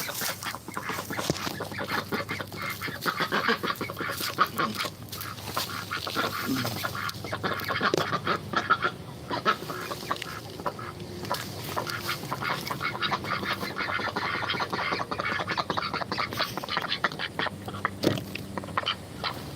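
Ducks quacking and chattering continuously in many short, irregular calls.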